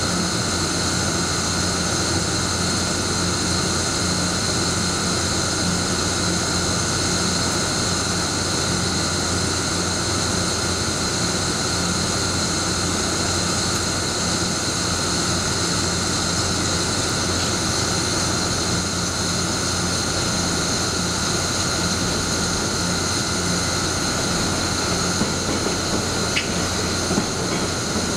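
Electric locomotive standing at the platform with its cooling blowers and equipment running: a steady, loud whirring hum with several high whines held at an even pitch, and a few faint clicks near the end.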